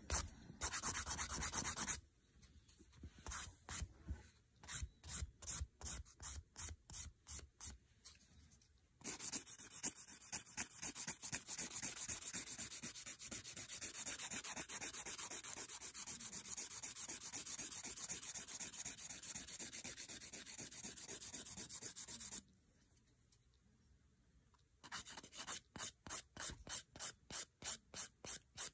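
Hand nail file rasping back and forth over a gel-coated fingernail, filing the hard gel off. Separate strokes about three a second, quickening into a fast continuous rasp for a long stretch mid-way, then a pause of two or three seconds near the end before slower strokes resume.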